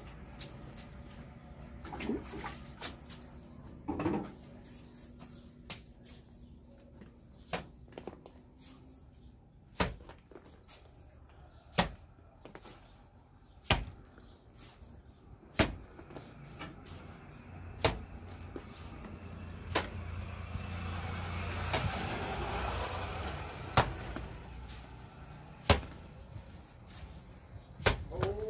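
Mortar flung from a mason's trowel slapping onto a concrete-block wall: a sharp slap about every two seconds as the wall is rendered by hand.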